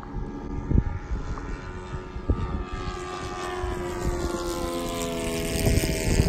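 Electric motor and propeller of a large radio-controlled Cessna model (FT Monster Radial motor) droning in flight, its pitch sliding down over a few seconds in the second half. Low thumps of wind buffeting come through underneath.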